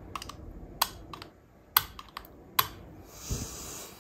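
Irregular light clicks and taps of a thin metal screwdriver and small parts against a Singer 301 sewing machine motor, about seven over the first three seconds. A soft brushing noise follows near the end.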